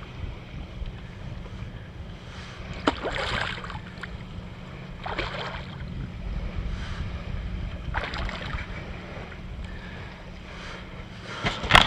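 Wind buffeting the microphone as a steady low rumble, with small waves slapping and sloshing against the plastic hull of an Ocean Kayak Trident 15 every two or three seconds. A louder splash comes just before the end.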